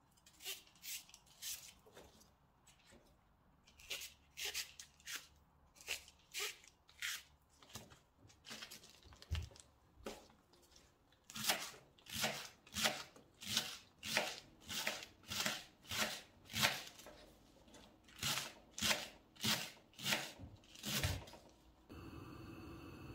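Kitchen knife slicing through fresh leek stalks onto a wooden cutting board, a crisp crunch with each cut. The cuts are irregular at first, then settle into a steady rhythm of about two a second. Near the end they give way to a steady hiss.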